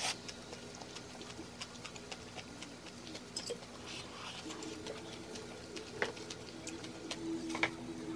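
Light, scattered clicks and taps of chopsticks against an earthenware ttukbaegi pot while eating, with two sharper taps near the end.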